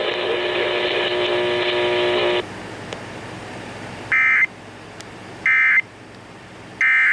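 Emergency Alert System end-of-message tones: three short, loud, screechy digital data bursts about a second and a quarter apart, starting about four seconds in, marking the end of an alert. Before them a steady multi-tone buzz cuts off suddenly about two and a half seconds in.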